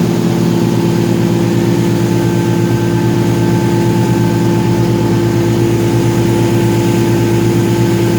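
Boat engine running at a steady speed: a constant, unbroken drone with a steady hum.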